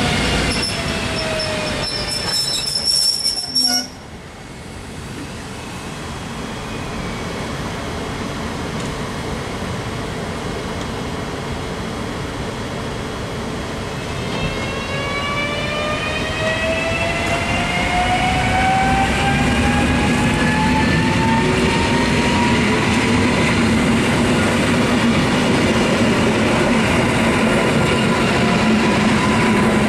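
SKM EN57AKM electric multiple unit running past with steady wheel-on-rail noise. In the first few seconds there is a high squeal and a falling whine, and then the sound drops away suddenly about four seconds in. From the middle on, a whine of several tones climbs steadily in pitch as the train pulls away, over a steady low hum.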